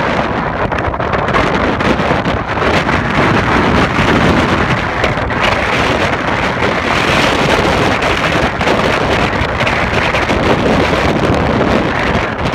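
Strong wind buffeting the microphone over the steady rush of stormy surf breaking on the beach.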